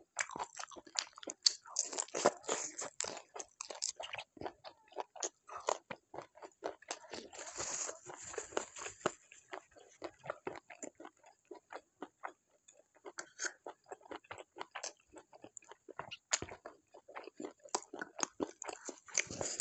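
Close-miked eating: a person biting and chewing food, a dense run of crunching and wet mouth clicks, busiest in the first half and thinning out for a few seconds in the middle.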